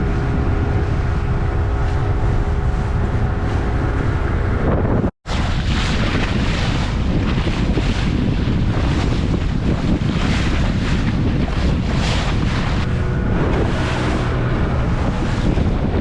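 Wind buffeting the microphone over the steady drone of a motorboat's engine and rushing water on the river. The sound cuts out completely for an instant about five seconds in, then comes back gustier.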